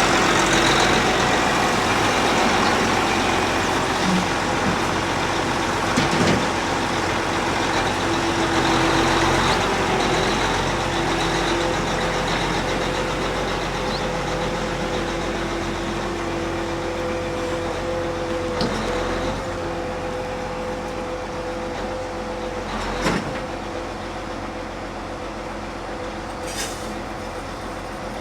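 Heavy vehicle engine running steadily with a constant hum, slowly getting quieter, with a couple of brief knocks.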